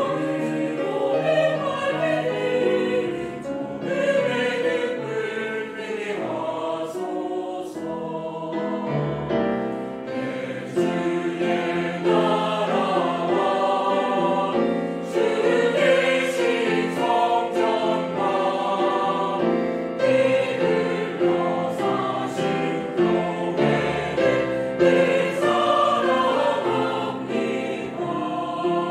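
Mixed choir of men and women singing a Korean sacred choral anthem, with cello and violin accompaniment.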